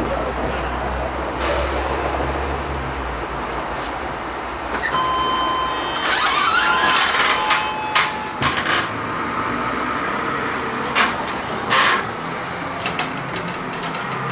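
City street traffic with vehicles passing. About six seconds in comes a loud hiss with squealing, followed by a few sharp knocks.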